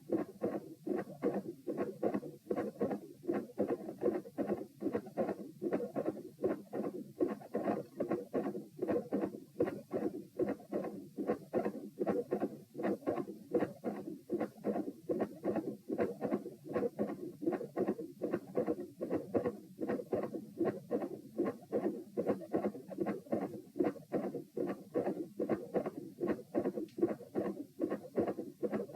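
Human heart sounds heard at the pulmonary area, a steady run of low thumping beats. Both the first and second heart sounds are split, a fixed split of S1 and S2.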